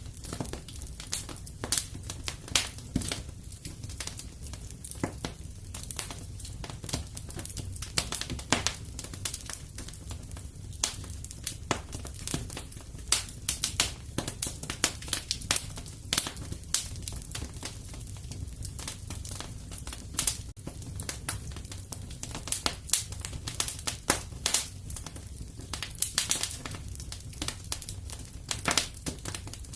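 Fire in a fireplace crackling, with irregular sharp pops scattered throughout over a steady low rumble.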